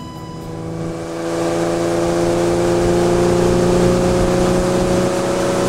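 Motorboat engine running at speed with the rush of water from the hull, growing louder over the first couple of seconds as the boat accelerates, its note rising slowly.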